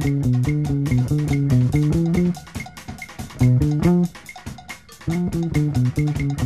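Late-1960s rock band instrumental passage: electric guitar and bass play a fast repeated riff over drums. The band stops twice briefly in the middle before the riff comes back.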